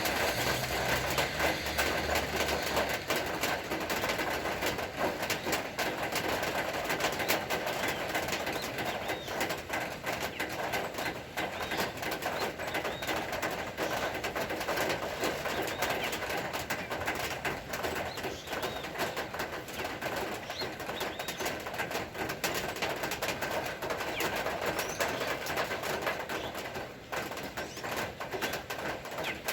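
Steady rain falling, with doves cooing and small birds chirping now and then. A low engine hum dies away in the first few seconds.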